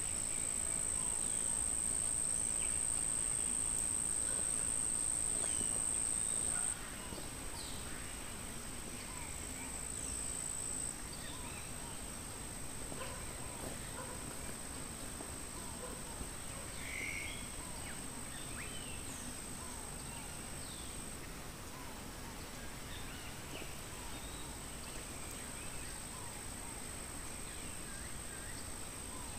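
Insects calling in one steady, high-pitched tone. The loudest cuts off suddenly about seven seconds in and fainter ones carry on. Short bird chirps are scattered over it.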